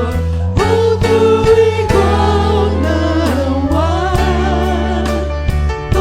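Christian worship song: voices singing a bending melody over a steady bass line and a regular drum beat.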